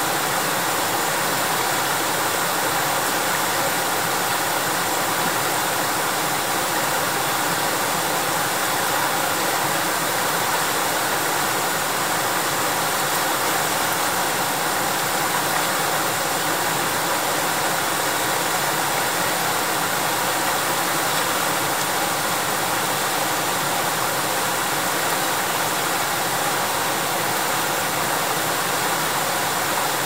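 Fast-flowing river water rushing over shallow rapids, a steady, unbroken rush of water noise.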